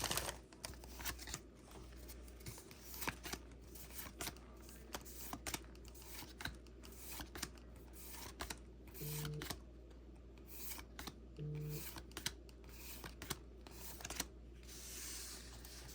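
Pokemon trading cards being flipped through and slid one behind another in the hand: a run of faint, irregular soft flicks and slides.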